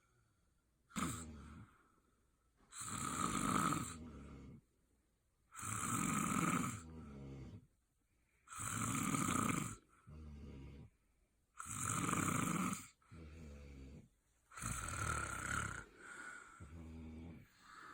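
A person snoring in deep sleep in a steady rhythm: a loud rasping snore about every three seconds, each followed by a quieter, shorter one, about six in all.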